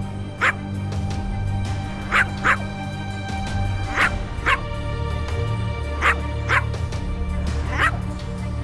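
Background music with sustained low notes, over which a dog gives short yips in pairs, two about half a second apart, repeating roughly every two seconds.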